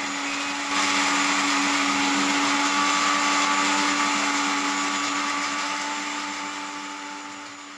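Electric mixer grinder running with its steel jar, grinding spices into a paste: a steady motor whine and whir that gets louder about a second in and slowly fades over the last few seconds.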